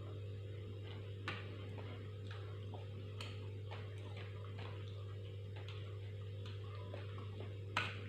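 Light clicks, roughly two a second and not quite even, over a steady low electrical hum; one louder click comes about a second in and another near the end.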